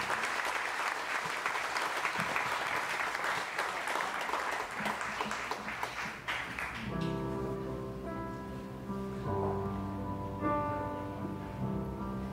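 Audience applauding, a dense patter of many hands clapping, which dies away about seven seconds in. The live band then starts playing soft held chords.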